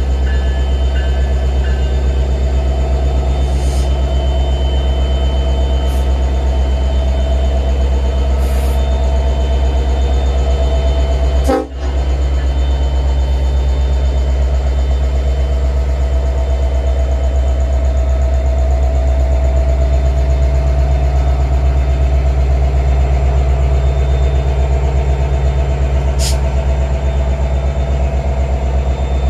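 Diesel freight locomotive engine running steadily close by: a deep, continuous rumble with a steady hum above it. The sound drops out for a moment about twelve seconds in.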